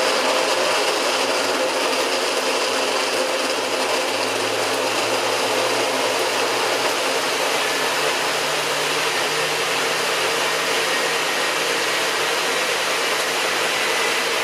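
Old countertop blender running steadily at full speed, whirring as it purées ice, raspberries, tequila and lime juice into a frozen margarita; its motor note rises slightly about seven seconds in.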